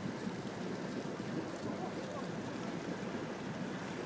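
Steady low rumble of a rigid inflatable boat's engine idling close by, with no change in speed.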